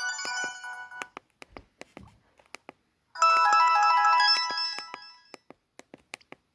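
A Samsung GT-E1272 ringtone, a many-note electronic tune, playing from a Newmind F15 flip phone's small speaker. It stops about a second in, starts again about three seconds in and fades out after about two seconds. Scattered short clicks come in the gaps.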